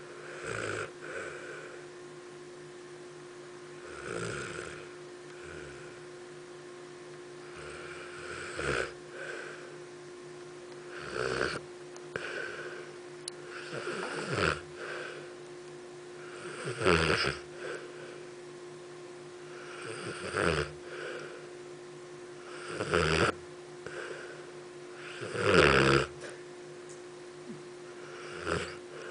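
A sleeping pet snoring, about ten snores in a slow, regular rhythm, one every two and a half to three seconds.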